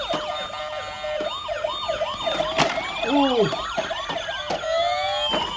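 Several battery-powered toy police cars and fire trucks sounding their electronic sirens at once: overlapping fast warbling tones layered with slower rising-and-falling wails. A sharp click about two and a half seconds in.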